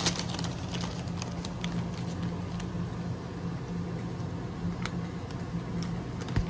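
Light rustling of an opened foil-lined bag of Goldfish crackers as the crackers shift inside, heard as scattered faint ticks over a steady low hum.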